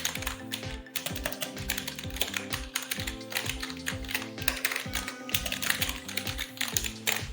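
Typing on an Armaggeddon AK666 gaming keyboard: fast, irregular key clicks, shown off as the keyboard's key-press sound. Background music with a steady beat plays underneath.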